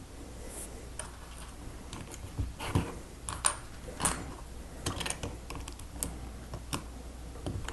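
Small plastic Lego pieces clicking and tapping as they are handled and pressed together, an irregular run of light clicks that is busiest in the middle.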